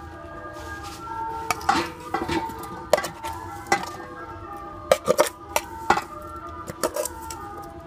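A metal spoon scrapes and clinks against stainless steel cookware as stir-fried food is spooned out onto a platter. The clinks come irregularly, about a dozen of them, with a quick cluster about five seconds in.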